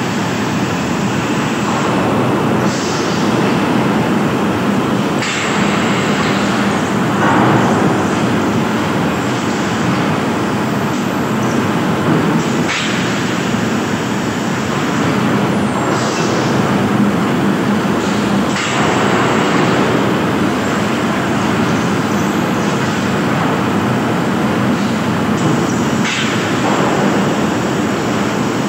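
Steady loud din of an asbestos cement sheet production line running, with brief brighter hissing surges every few seconds.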